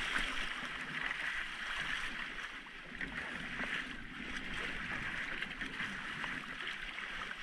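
Steady hiss of sea water washing and sloshing along the side of a small boat's hull, with a fish held alongside.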